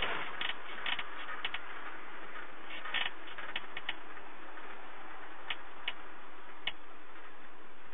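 Steady road and engine noise inside a moving minibus cabin, picked up by an on-board camera's low-quality microphone, with irregular sharp clicks and rattles scattered through it.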